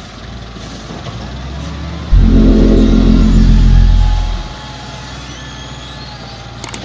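XCMG LW300KN wheel loader's diesel engine running, revving up hard and suddenly about two seconds in for roughly two seconds as the loader moves off with a full bucket of soil, then dropping back to a steady lower running note.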